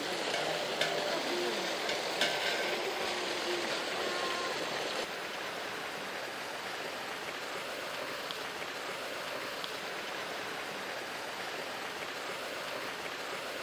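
Water gushing steadily from a pipe into a tank, an even rushing splash; it drops a little quieter about five seconds in.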